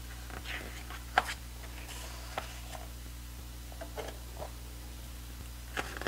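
Pages of a large photobook being turned by hand: paper rustling and handling, with a sharp tap about a second in and a few softer clicks later, over a steady low hum.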